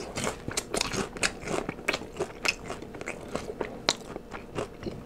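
Crispy fried chicken being bitten and chewed close to the microphone: a quick, irregular string of crisp crunches, several a second.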